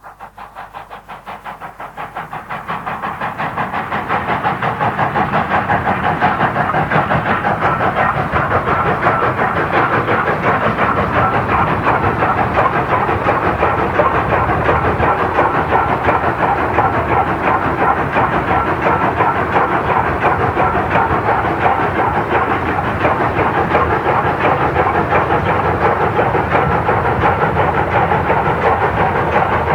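South Australian Railways 520-class steam locomotive working a train, its exhaust beating in a fast, even rhythm with steam hiss. The sound rises over the first few seconds, then holds steady and loud.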